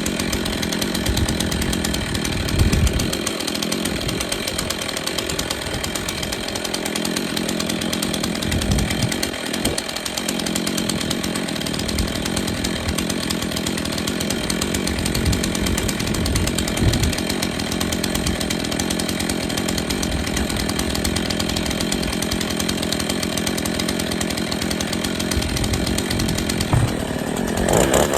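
Gas chainsaw running steadily while bucking firewood logs into lengths, its pitch shifting near the end.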